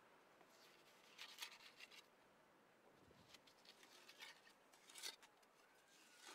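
Faint scraping of a metal trowel cutting into and smoothing the wet mud plaster of a brick cookstove, in a few short scrapes.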